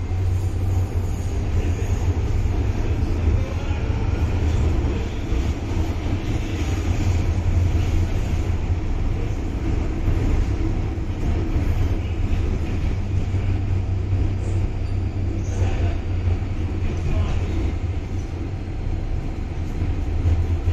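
Metro-Cammell M-Train electric multiple unit running, heard from inside the carriage: a steady low rumble of wheels and running gear.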